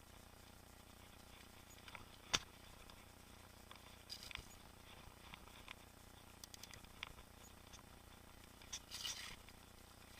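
Mountain bike rattling over a rough trail: scattered light clicks and clatters from chain and frame. There is one sharp knock a little over two seconds in and a short burst of rattling near the end.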